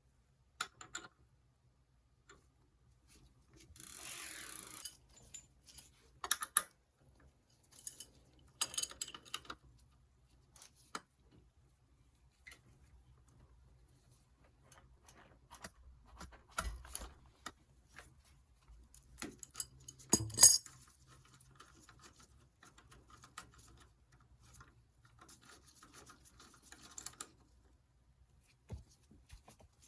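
Scattered metallic clinks, knocks and scrapes of hand tools and bicycle parts being handled, with one sharper knock about two-thirds of the way through.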